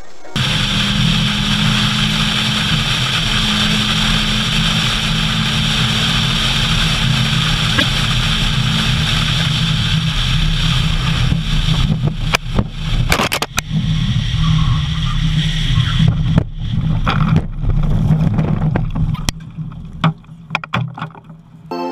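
Steady drone of a car's engine and road noise heard from inside the vehicle at speed. In the second half it is broken by a series of sharp knocks and bangs as the car runs off the road into trees.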